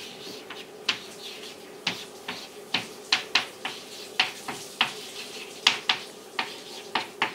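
Chalk writing on a chalkboard: a string of short, sharp taps and scrapes, irregular at about two or three a second, as letters and symbols are drawn.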